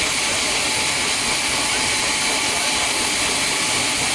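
Steady hiss of steam escaping from DB class 01 express steam locomotive 001 180-9 as it stands with a white cloud of steam venting at the front by its cylinders.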